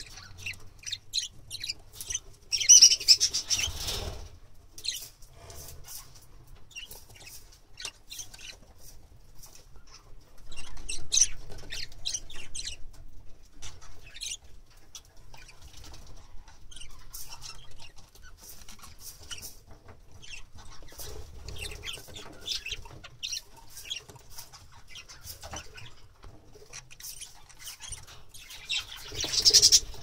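A pair of budgerigars chirping and chattering in short, high notes while moving about in a wooden nest box, with louder flurries about three seconds in and near the end.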